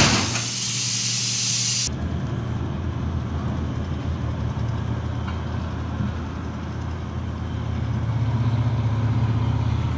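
A steady hiss over a low hum for about two seconds, cut off abruptly. Then the steady low drone of heavy diesel engines as a large mining wheel loader dumps a bucket into a haul truck, the engine note swelling louder over the last couple of seconds.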